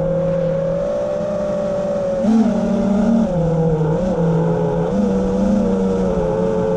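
Small electric propeller motors of a remote-control aircraft humming steadily, their pitch wavering and stepping slightly as motor speed is adjusted.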